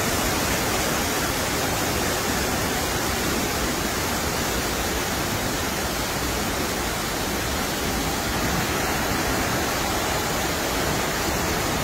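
Steady, unchanging roar of rushing floodwater.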